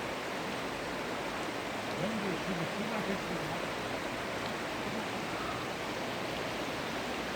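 Steady rushing of stream water, an even noise that starts abruptly just before and holds without change.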